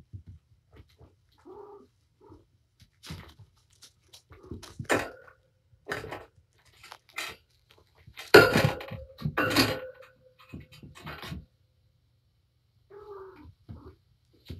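A mother cat and her kittens playing on a sisal cat tree: scattered scratches, knocks and scuffles, the loudest a burst of thumps about eight seconds in.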